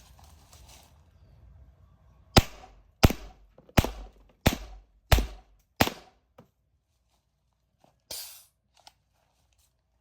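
Modified FSC paintball launcher firing six sharp shots in quick succession, roughly 0.7 s apart, each with a brief tail. A short noisy burst follows a couple of seconds later.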